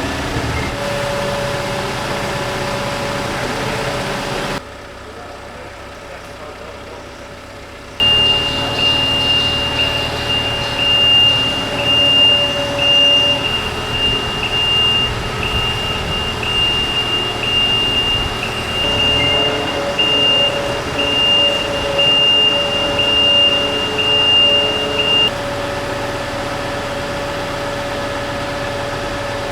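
A heavy vehicle's engine running steadily. A little before the five-second mark it drops away for about three seconds. From about eight seconds in, a high continuous tone with slight regular dips sounds over it for some seventeen seconds, then stops.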